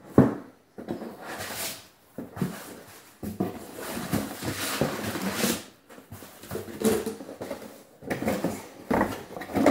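Cardboard packaging being handled: foam packing inserts and an inner cardboard carton scraping and rubbing against the walls of a cardboard box as they are lifted out, with several light knocks.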